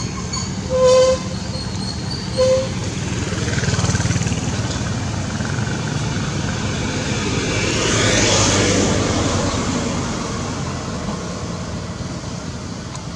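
Road traffic rumbling steadily, with two short horn toots about one and two and a half seconds in, and a vehicle passing by that swells and fades past the middle.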